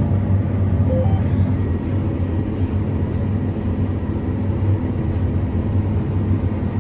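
Combine harvester running steadily while cutting crop, heard from inside the cab: an even, low mechanical hum of engine and threshing machinery.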